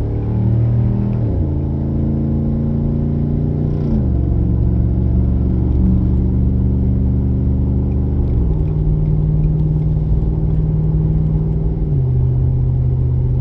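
2019 Ford Super Duty pickup accelerating hard up to highway speed, its engine rising steadily in pitch and dropping four times as the automatic transmission upshifts, about one, four, eight and twelve seconds in.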